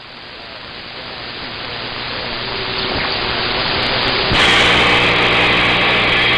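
CB radio receiver static: a steady hiss that grows louder, then about four seconds in a stronger signal breaks in, louder and brighter, with a steady hum under it.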